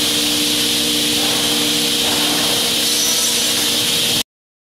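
Balestrini Viva 5-axis CNC drilling and mortising machine running: a steady hum from its spindle motors under a loud hiss. The sound cuts off abruptly near the end.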